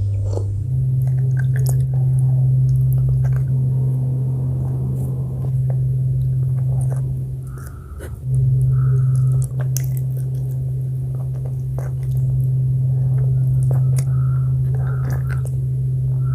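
Close-miked eating sounds: scattered bites and sticky chewing clicks over a loud, steady low hum.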